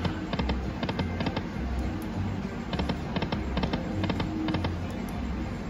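Aristocrat video slot machine spinning its reels. Quick clusters of sharp clicking ticks repeat about every half second over the machine's electronic music.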